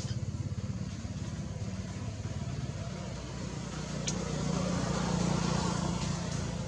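A motor vehicle engine running with a steady low rumble, growing louder from about four seconds in as if passing close by. A sharp click sounds about four seconds in.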